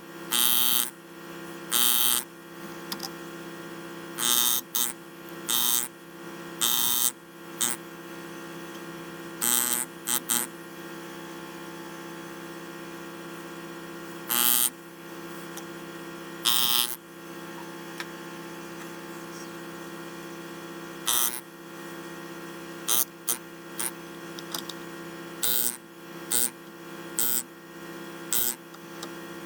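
A steady buzzing hum from a running machine, broken by about two dozen short bursts of hissing noise at irregular intervals.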